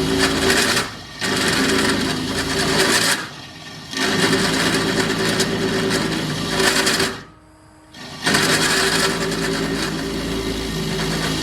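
Drill press with an annular cutter boring through steel: a loud, harsh cutting noise over the steady hum of the motor. The cutting breaks off three times, briefly about a second in, for half a second near three and a half seconds, and for about a second near seven and a half seconds, leaving only the motor's hum.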